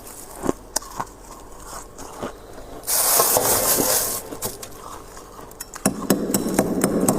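Freezer frost and ice crunching close to the microphone. Scattered crisp cracks are followed by a loud crunch about three seconds in lasting just over a second, more cracks, and then steady dense crunching from about six seconds in.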